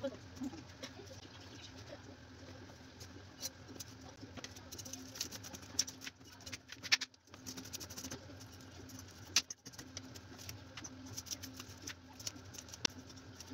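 Knife blade scraping the scales off salted fish (fesikh) on a plastic cutting board: irregular short scrapes and clicks.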